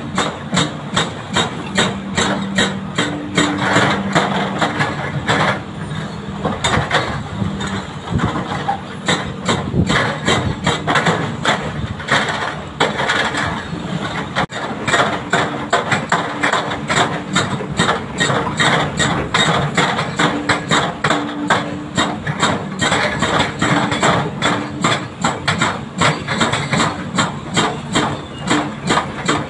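Hydraulic rock breakers on two excavators, a Doosan DX300LCA and a Hyundai HX340SL, hammering hard rock in rapid repeated blows. The excavators' diesel engines run steadily underneath.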